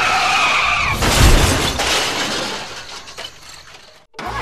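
A short pitched tone, then about a second in a sudden loud crash like shattering glass that dies away over the next two seconds.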